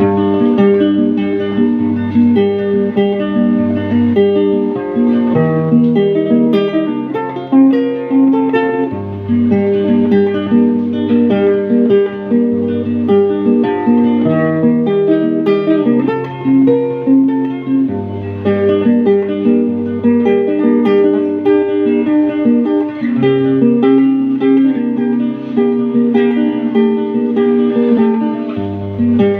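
Instrumental song intro: guitar picking and strumming over a bass line that changes note every couple of seconds, with no singing yet.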